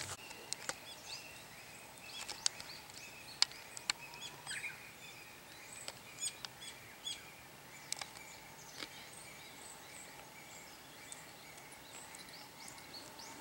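Small birds chirping on and off with short, high calls, over faint steady outdoor background, with a few sharp ticks mixed in.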